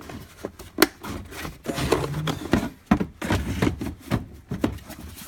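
Tools being handled in a toolbox: scattered sharp clicks and knocks with rubbing and scraping, the two loudest knocks about a second and three seconds in.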